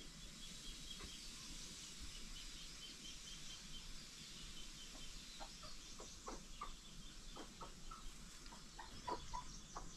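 Chickens clucking faintly, short calls that come more often from about halfway through, over a quiet rural background with a faint rapid high chirping trill in the first few seconds.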